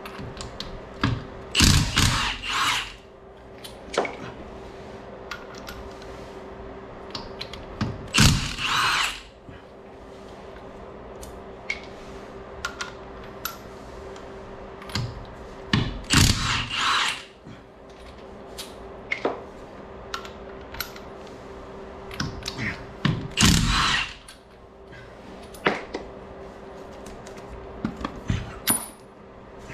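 Cordless impact wrench hammering a car's lug nuts loose: four bursts of about a second each, several seconds apart. Small clicks from handling and setting down the nuts come between the bursts, over a faint steady hum.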